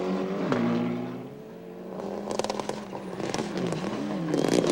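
Rally car engines revving hard, their pitch rising and falling through gear changes. The sound dips about a second and a half in, then builds again, with a few sharp crackles near the end.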